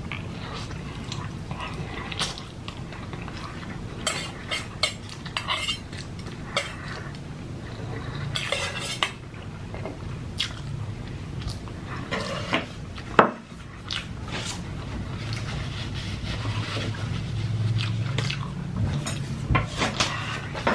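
Close-up eating sounds: chopsticks and utensils clinking and scraping against a bowl, with irregular sharp clicks and crunches scattered throughout. The sharpest click comes about 13 seconds in. A steady low hum sits underneath.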